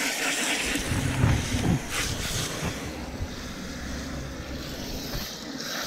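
A garden-hose shower nozzle sprays water against the inside of a plastic cooler box, making a steady hiss and splash. There are some low bumps about a second in. The high part of the hiss thins out about three seconds in.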